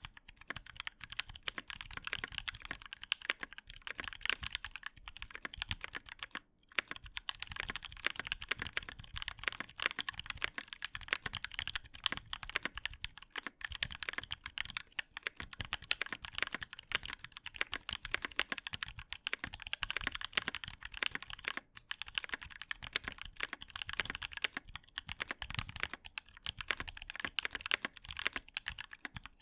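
Mechanical keyboard with tactile T1 switches lubed with Tribosys 3204, an aluminium plate and ABS Cherry-profile keycaps, typed on quickly and continuously. It makes a dense stream of keystroke clacks, with a brief pause about six and a half seconds in.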